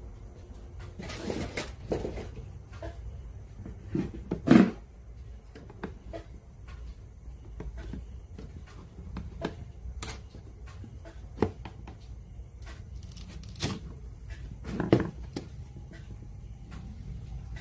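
Hands handling small parts and tools on a workbench: scattered light clicks and taps, a brief rustling scrape about a second in, and two louder knocks, one about four seconds in and one near the end.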